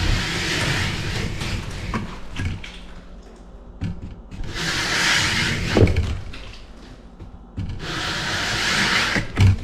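A scraper blade drawn across a dampened popcorn ceiling in three long strokes, each a noisy scrape lasting a second or two, with a short thump near the end.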